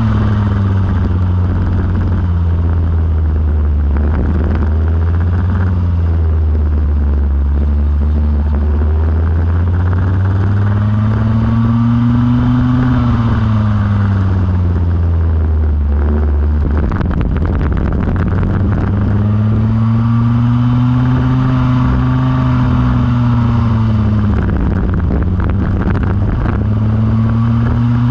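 Go-kart engine running under load, its pitch falling as it slows and climbing again as it accelerates, several times over.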